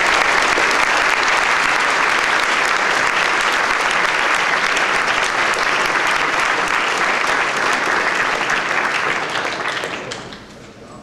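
Audience applauding: steady, dense clapping that fades out about ten seconds in.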